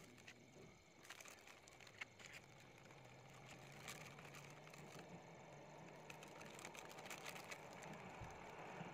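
Near silence, with a few faint clicks and rustles and a faint low engine hum coming up in the second half.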